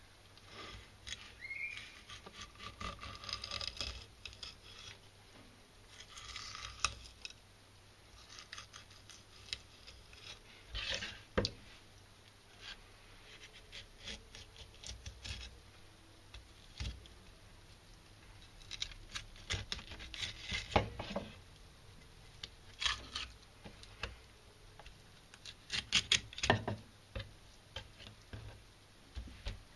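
Knife filleting a horse mackerel into three pieces on a cutting board: faint, irregular scraping strokes of the blade through the flesh, with scattered sharp taps of the knife against the board.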